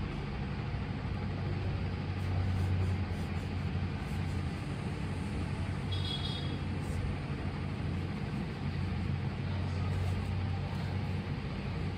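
Steady low hum and rumble under an even hiss, with a brief high squeak about six seconds in.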